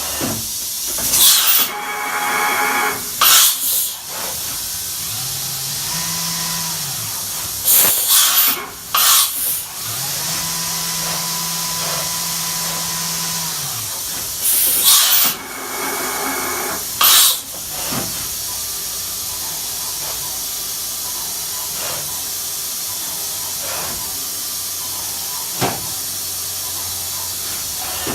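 Fanuc Robodrill vertical machining center running: a steady hiss broken by repeated short, sharp bursts of air blast. Twice a motor hum steps up, holds and drops away, once briefly and once for a few seconds.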